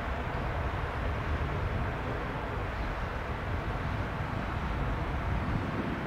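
Distant Piper PA-32R-301's six-cylinder piston engine and propeller running at low power as the plane rolls out and turns off the runway after landing, mixed with a steady low rumble of wind on the microphone.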